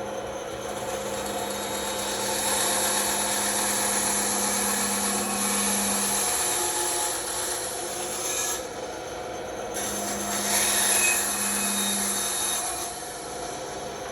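Bandsaw cutting wood: a steady rasping of the blade through the board over the hum of the running saw. The cut eases off briefly about nine seconds in and stops shortly before the end, leaving the saw humming.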